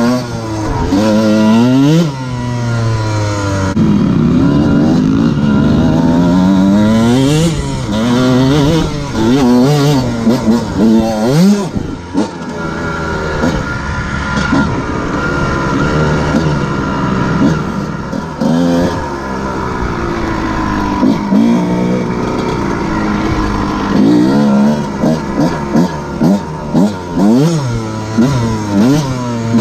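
Dirt bike engine being ridden hard, its pitch climbing and dropping again and again as the throttle opens and the gears change. In the last few seconds it goes through a run of short, quick revs.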